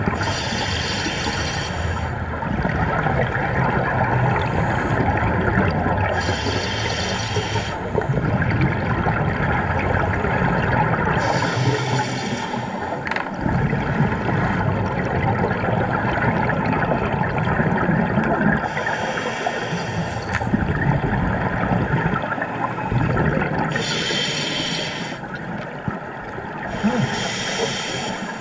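Scuba diver breathing through a regulator underwater: a burst of exhaled bubbles hisses out every few seconds over a steady underwater rumble.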